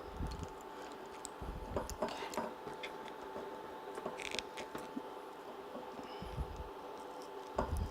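Small clicks, scrapes and creaks of a corkscrew being twisted into a wine bottle's cork, with a few soft low thumps of the bottle being handled, over a faint steady hum.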